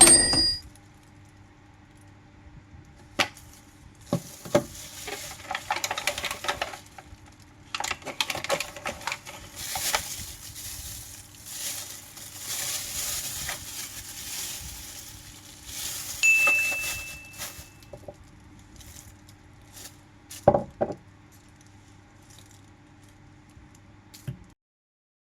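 Kitchen cooking sounds: dishes and utensils clinking and knocking, with stretches of hissing noise through the middle, over a faint steady hum. The sound cuts off suddenly near the end.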